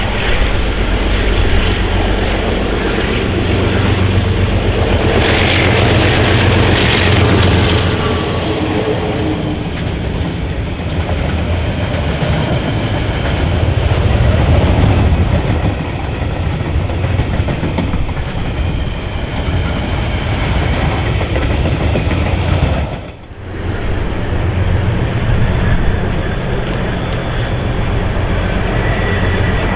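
Two GE DX-class diesel locomotives working hard in a high notch on a grade as they pass, followed by the steady clatter of a long rake of container wagons rolling by. About three-quarters of the way in the sound cuts off abruptly, then a steady low diesel rumble carries on.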